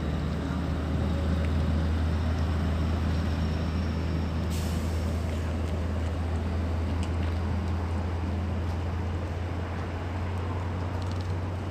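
Motor vehicle engine idling with a steady low hum, with a short hiss about four and a half seconds in.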